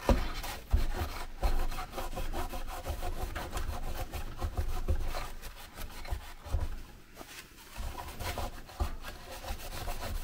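A cloth rubbing back and forth over the metal lid of a Ryzen 3700X CPU, wiping off old, caked thermal paste. The strokes come in an irregular run and ease off for a moment a little past the middle.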